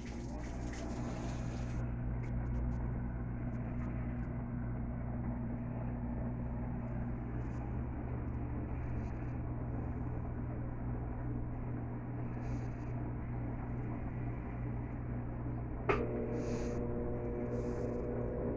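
Electrolux LT12F top-loading washing machine running its intermediate spin before the first rinse with a full load: a steady motor and drum hum. A sharp click comes near the end, after which a higher steady tone joins the hum.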